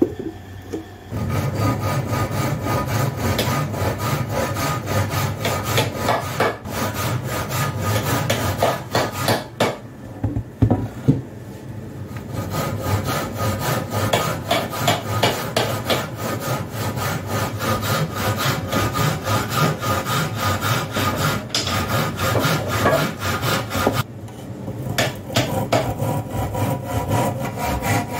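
Steel hand saw cutting across a hardwood frame beam in steady back-and-forth strokes. The sawing stops briefly a little before halfway, with a couple of sharp knocks, and dips again near the end before going on.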